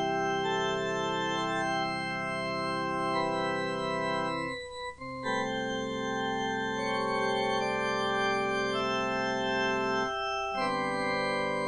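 Organ music playing slow, sustained chords, each held for several seconds, with a brief gap about four and a half seconds in and another about ten seconds in.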